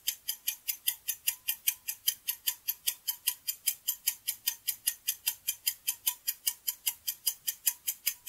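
Clock-style ticking sound effect marking a quiz countdown timer: an even run of sharp ticks, about five a second.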